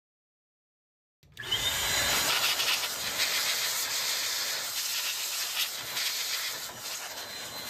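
Handheld electric air blower blowing dust out of an open laptop: a steady rushing hiss of air that starts suddenly about a second in.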